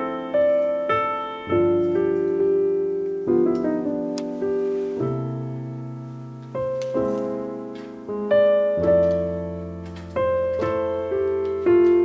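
Background music: a slow solo piano piece, with chords and single notes struck every second or so and left to ring out and fade.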